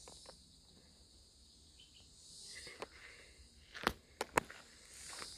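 Faint, steady high-pitched chorus of insects along a wooded trail, with a few sharp taps near the middle, the loudest a little before four seconds in.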